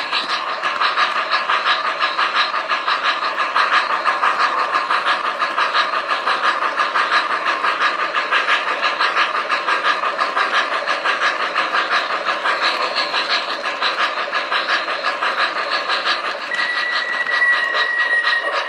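MTH RailKing B&O 4-6-2 Pacific O-gauge model steam locomotive running, its onboard electronic steam sound set playing rapid, even chuffs. A thin, steady high tone joins near the end.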